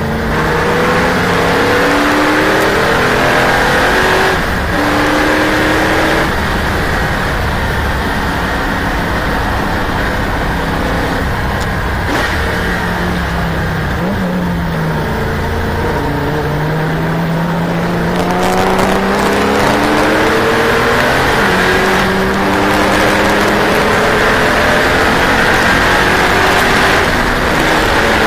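Race car engine heard from on board at racing speed, its pitch climbing through each gear and dropping back again and again at the gear changes and braking points, over heavy wind and road noise.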